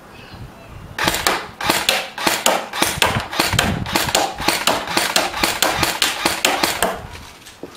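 ASG G36C (Jing Gong) electric airsoft rifle firing a string of shots, about four or five a second and unevenly spaced, starting about a second in and lasting about six seconds. It is running on a battery run down from a day's use, so the shooting is not very consistent.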